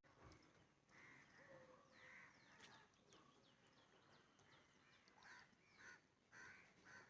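Faint bird calls: scattered short chirps and quick falling whistles.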